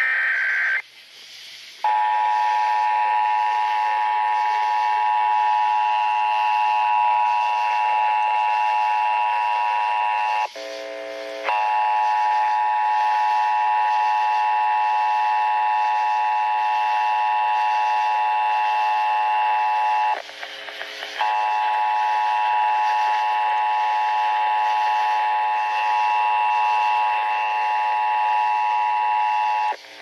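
Emergency Alert System alert playing through an Eton hand-crank weather radio's speaker: a brief burst of data tones at the start, then a long, steady two-tone attention signal, broken twice for about a second by lower tones.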